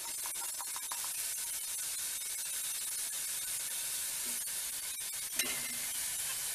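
Jaggery syrup pouring through a metal strainer onto grated coconut in hot ghee in a steel kadai, giving a steady soft sizzle as a wooden spatula stirs, with a light knock about five seconds in.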